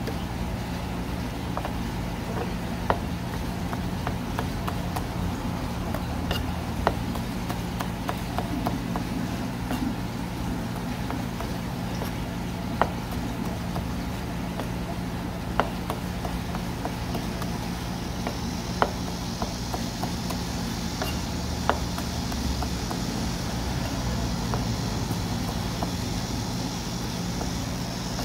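Knife knocking sharply on a cutting board every few seconds while small gizzard shad are cut for sashimi, over a steady low machine hum. A faint hiss joins about two thirds of the way in.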